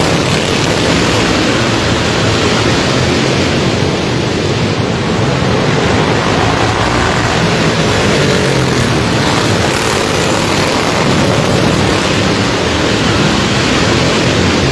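Racing lawnmower engines running hard on a dirt track: a loud, continuous engine drone whose pitch wavers slightly as the mowers race.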